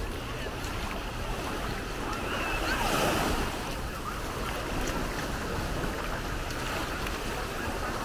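Small Baltic Sea waves lapping and washing up a sandy shore, a steady wash that swells about three seconds in, with wind buffeting the microphone.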